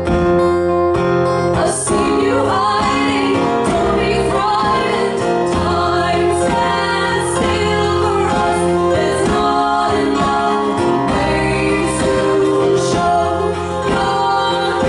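Live acoustic guitar music with women singing. The voices come in about two seconds in over the strummed guitar.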